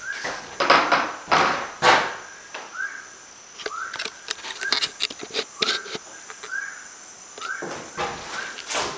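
Footsteps crunching through dry ground cover, loudest near the start and again near the end. Under them a short rising call repeats roughly once a second, over a steady high insect buzz.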